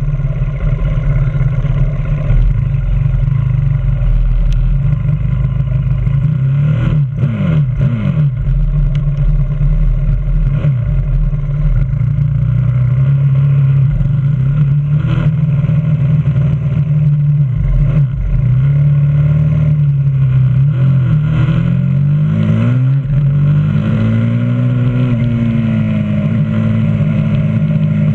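A 125cc supermoto pit bike's single-cylinder four-stroke engine heard from an onboard camera, running at low revs and then revving up and down through the gears in the second half, its pitch rising and falling.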